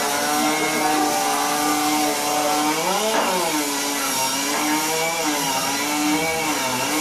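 Chainsaw engines running. Beneath a steady note, the pitch swings up and down, rising and falling sharply about three seconds in.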